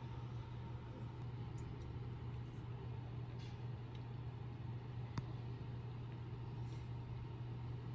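Steady low hum with a single sharp click about five seconds in; no meowing.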